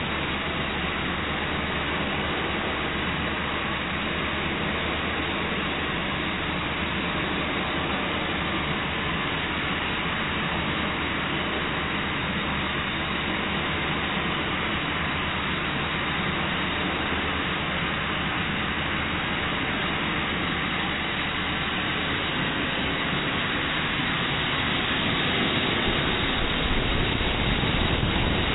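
Compressed air blowing steadily from an air-compressor blow gun nozzle: a constant hiss that gets a little louder near the end.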